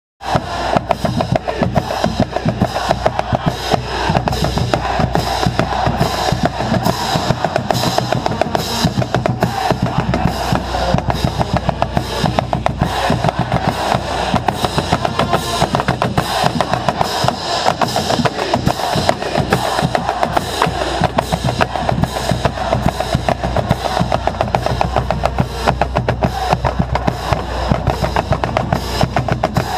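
Marching band drumline playing a fast, steady cadence of snare and bass drum strokes, with a bass drum right next to the microphone.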